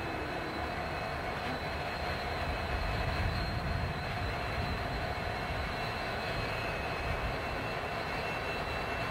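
Southern Pacific diesel-electric locomotives passing at steady speed, a continuous low engine rumble that swells slightly a few seconds in.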